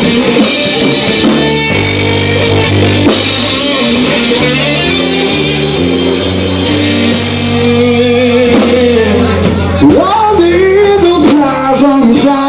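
Live rock band playing loud, with electric guitars over a drum kit; sliding, bending notes come in near the end.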